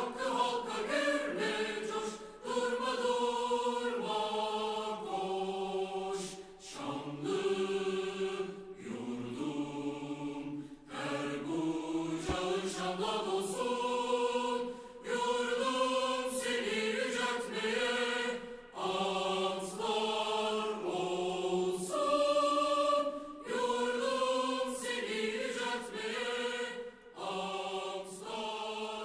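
A choir singing slow phrases of long held notes, with brief pauses between phrases.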